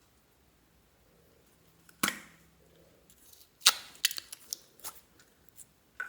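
Slime being mixed and pressed by hand, giving sharp pops and clicks: one about two seconds in, a loud pop followed by a quick run of smaller clicks a little later, and one more near the end.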